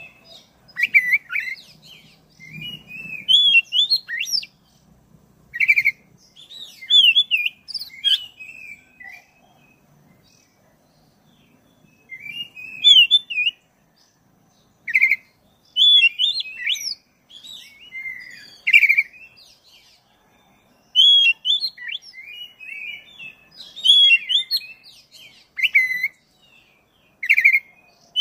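A black-breasted oriental magpie-robin (kacer) singing a long run of rapid, varied whistled phrases in bursts. Short pauses break up the song, and there is a longer lull of about three seconds about a third of the way in.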